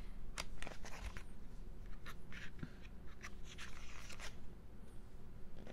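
Pages of an album's photo book being turned and handled: irregular short paper rustles and light ticks.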